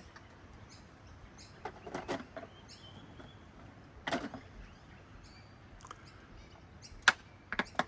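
Scattered plastic clicks and knocks as the lid goes on a small portable hand-crank washing machine, the sharpest two near the end. Faint bird chirps are in the background.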